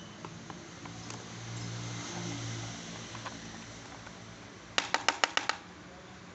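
A quick run of about seven sharp clicks or taps, at roughly ten a second, near the end, over a low steady hum with a few faint ticks earlier.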